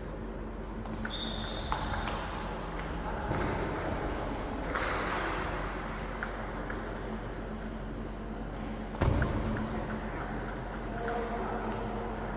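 Table tennis ball clicking off bats and table during rallies, in scattered sharp ticks. A dull thump about nine seconds in is the loudest sound.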